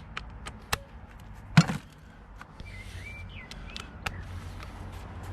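Metal tools and suspension parts clinking and knocking as they are handled, with one louder clank about a second and a half in. A few bird chirps come in around the middle, and a low hum rises near the end.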